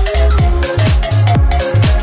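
Background electronic dance music with a heavy, driving beat and booming bass hits that slide down in pitch.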